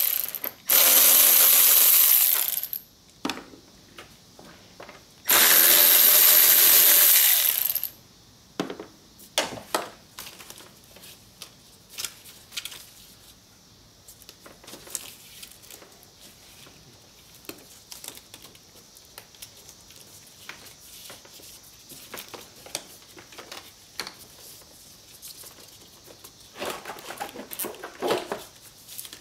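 Cordless power ratchet running in two bursts of about two seconds each, about a second in and about five seconds in, spinning out the 10 mm bolts that hold the radiator cooling fan assembly. Scattered light clicks and knocks of tools and parts being handled follow, with a busier patch of handling noise near the end.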